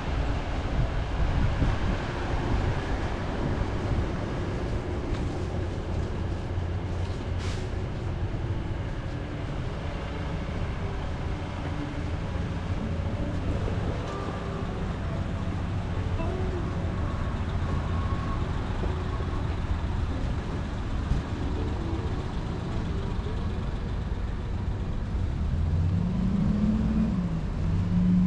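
Road traffic on a city street: a steady rumble of cars and other vehicles passing. Near the end, one vehicle's engine rises in pitch as it speeds up.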